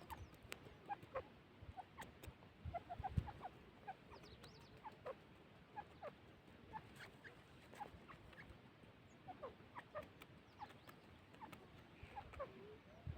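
Grey francolin giving faint, scattered short chirps and clucks, several a second in loose clusters: soft calling rather than the loud repeated call.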